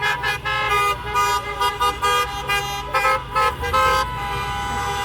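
Several car horns honking in overlapping short and long blasts of different pitches from a passing convoy of cars, over a low rumble of traffic.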